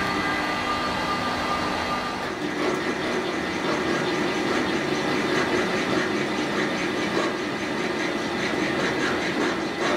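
Metal lathe running steadily while turning down the end of a steel ball screw shaft, the motor and gearing humming under the cut. The cut is going slowly, with the long shaft not whipping.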